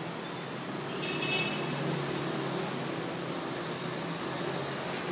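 Steady traffic noise of a busy street, with the hum of passing vehicles' engines and a brief high tone about a second in.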